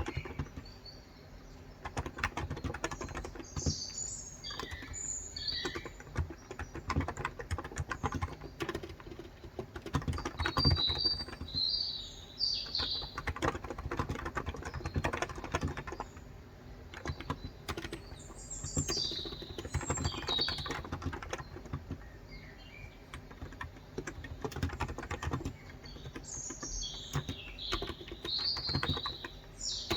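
Typing on a Cox Endeavor 35 g tenkeyless electrostatic capacitive keyboard: runs of rapid keystrokes that pause briefly now and then. Small birds chirp in short bursts several times.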